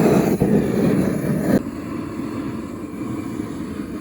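Steady low rushing noise, which drops abruptly to a quieter hiss about one and a half seconds in.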